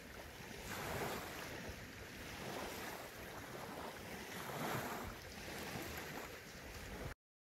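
Quiet background ambience of soft rushing noise, like surf or wind, swelling and fading about four times before cutting off abruptly near the end.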